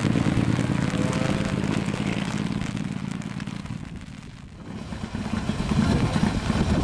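Mitsubishi Lancer Evo IX rally car's turbocharged four-cylinder engine pulling away and fading over the first four seconds, then running loud again from about five seconds in.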